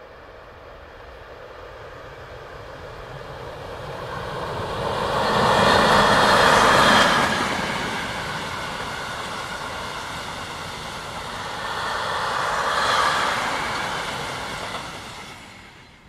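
Electric freight train passing close by: wheel-on-rail rolling noise builds, is loudest about six to seven seconds in as the locomotive goes by, and keeps on as a long string of covered steel-coil wagons rolls past, with a second swell a little later, then fades out near the end.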